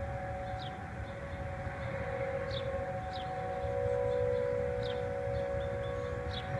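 Distant outdoor tornado warning sirens sounding a steady, held tone of several pitches during their routine weekly test, swelling slightly about halfway through.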